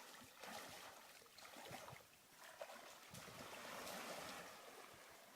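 Faint water trickling and lapping around a kayak moving on calm water, with a few soft drips and ticks.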